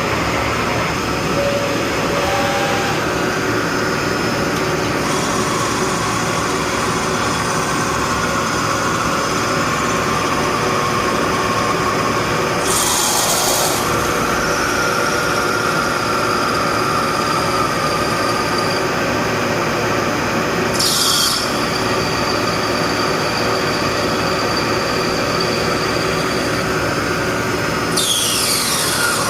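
CNC machine cutting brass: a steady mechanical run with a constant whine. Short hissing bursts come three times, and a tone slides down in pitch near the end.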